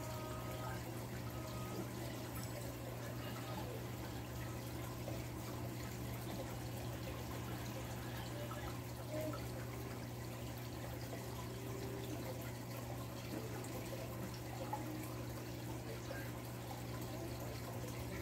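Aquarium equipment running: a steady low hum with water trickling and circulating, and a couple of faint taps about halfway through and near three quarters of the way in.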